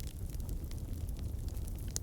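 Wood campfire burning: a steady low rumble of flames with frequent small crackles and pops from the burning logs, one sharper pop near the end.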